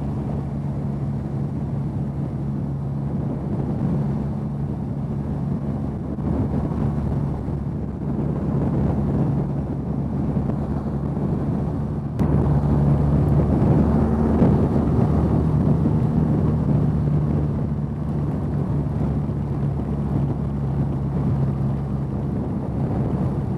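BMW R nineT's boxer twin engine running steadily at cruising speed, mixed with wind noise and the hiss of tyres on a rain-soaked road. It gets louder about twelve seconds in.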